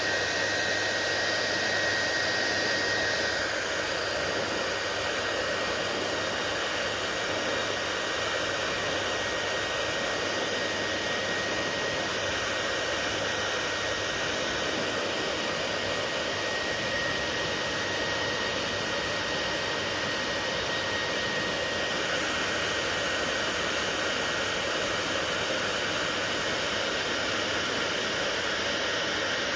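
Hair dryer running steadily: a constant rush of air with a thin high whistle over it, its tone shifting slightly a few seconds in and again about two-thirds of the way through.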